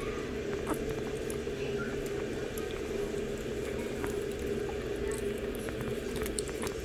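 Shih Tzu puppies eating soft, wet food from a bowl: small wet smacking and scattered clicks over a steady low hum.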